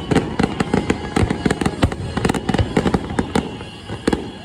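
Fireworks going off in a dense barrage: many sharp bangs and pops, several a second and overlapping, with faint whistling tones above them.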